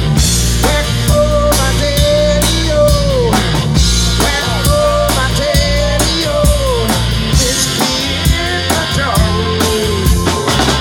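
Live rock band playing: drum kit, electric guitars, bass and keyboard, with a lead line of long held notes that bend up and down in pitch over a steady beat.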